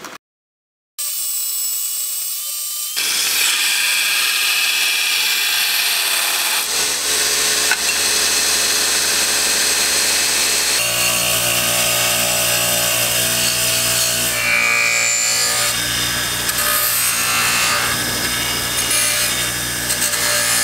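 After a brief silence, a run of steady shop power tools working steel: a metal-cutting saw, then a belt sander grinding the edge of a steel plate, then a bench grinder's abrasive wheel with a steady motor hum. The sound changes abruptly about three, seven and eleven seconds in.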